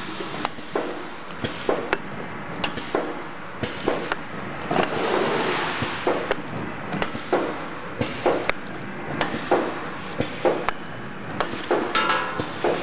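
Semi-automatic aluminium tube filling and sealing machine running: irregular metallic clanks and knocks, one or two a second, over a steady mechanical din, with short hisses breaking in now and then.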